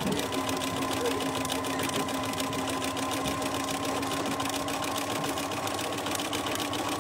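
Bernina B 335 electronic sewing machine stitching a seam at a steady, even speed: a constant motor hum with rapid, regular needle ticking.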